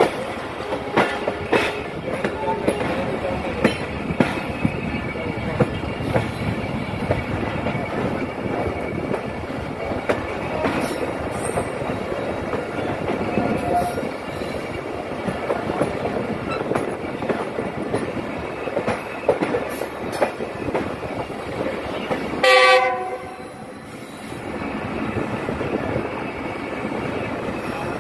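Tezgam Express passenger coaches running, heard from an open coach doorway: a steady rumble with the wheels clicking over rail joints. A train horn gives one short, loud blast about three-quarters of the way through.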